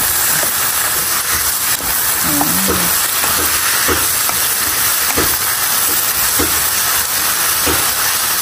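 Asparagus stir-frying in a hot nonstick frying pan: a loud, steady sizzle and hiss, with soft strokes of a wooden spatula stirring it about once a second in the second half.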